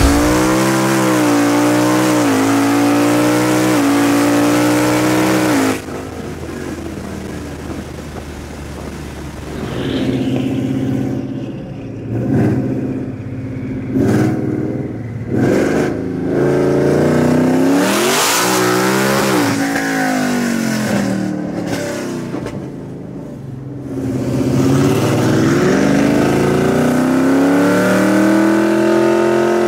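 Whipple-supercharged 2018 Mustang's V8 heard from inside the cabin, running hard with its pitch wavering for about six seconds, then dropping away. Later come several short revs and one rev that rises and falls as both cars warm their tires, and near the end a long pull rising in pitch.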